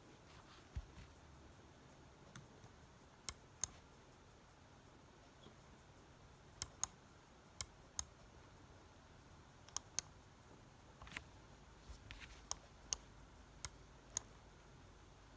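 Computer mouse clicking: sharp, irregular single clicks, some in quick pairs, over a faint room hiss.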